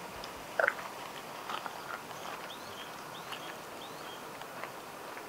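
Birds chirping outdoors: a few short, rising, high chirps in the middle. About half a second in there is a brief louder call, and there are scattered light clicks.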